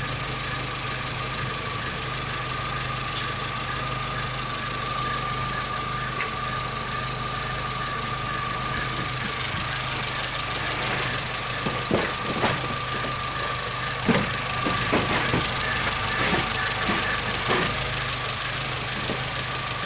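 Chevrolet Corsa 1.4 engine idling, with a steady high whine from the accessory-belt side that the mechanic takes for a failing water pump. Scattered knocks come in over the second half.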